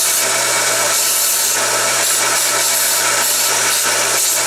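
Homemade 2x48-inch belt sander running with a steady motor hum, while a steel bar is ground against the moving abrasive belt to deburr it, a continuous rasping hiss that swells and eases as the bar is pressed and moved.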